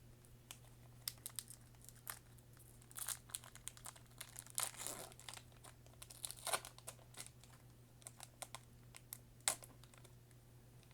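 Foil Pokémon booster pack wrapper crinkling and being torn open by hand: a run of sharp crackles, with a longer stretch of crackling about halfway through.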